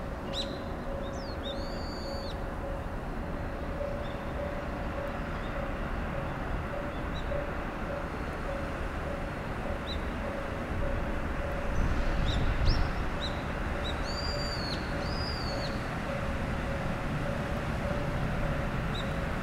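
Outdoor ambience: a steady rumble and hiss with a faint pulsing tone, and a bird calling in short arched calls about two seconds in and again about twelve to sixteen seconds in.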